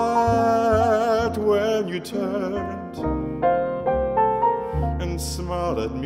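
A male jazz vocalist holds a sung note with vibrato over piano and upright bass for about the first two seconds, then the piano plays on alone with plucked bass notes.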